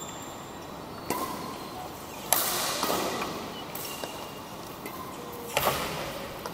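Badminton rackets striking a shuttlecock during a rally: four sharp hits, the loudest halfway through and near the end, each echoing in a large hall.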